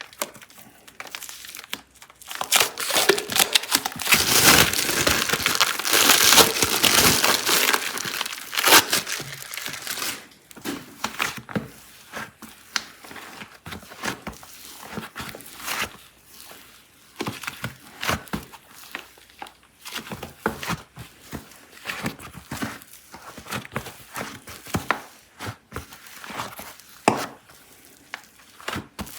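Clay packaging being crinkled and torn open during an unboxing. A dense, loud stretch of crinkling comes in the first third, then scattered crackles and clicks.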